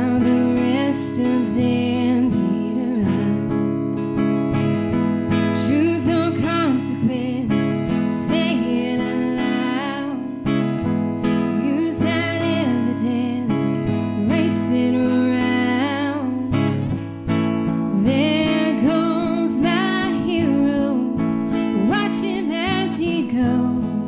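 Music: strummed acoustic guitar with a sung melody over it.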